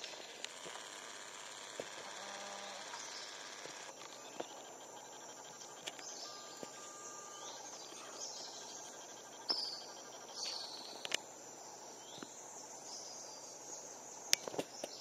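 Tropical forest background: a steady high insect drone, with a few short bird chirps near the middle and scattered sharp clicks.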